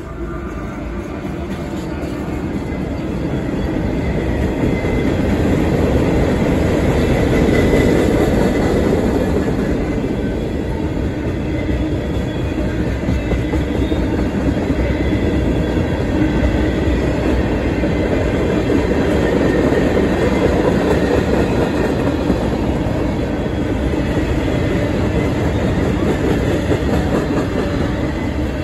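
CSX freight train passing close by. The last of its diesel locomotives goes by first, then a long string of tank cars rolls past, wheels running on the rails. The noise builds over the first few seconds and then stays steady and loud.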